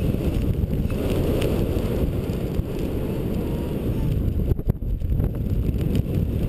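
Heavy wind noise rumbling on a GoPro camera's microphone, from the rush of air as the pilot skis down the slope and takes off under a paraglider. It dips briefly a little over halfway through.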